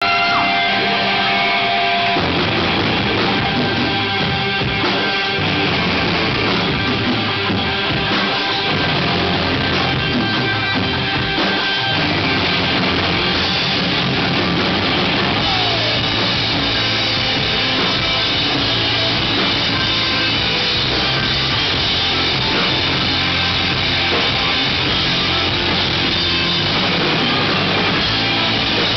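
Live rock band playing: electric guitars, bass guitar and drum kit, loud and dense. A held tone in the opening two seconds gives way as the full band comes in.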